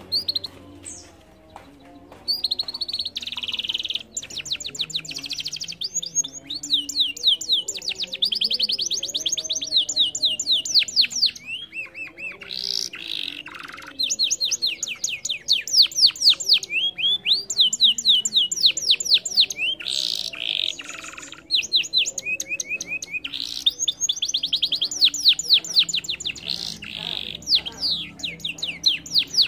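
Domestic canary singing: long rolling trills of fast repeated high notes, phrase after phrase with short breaks, starting a couple of seconds in.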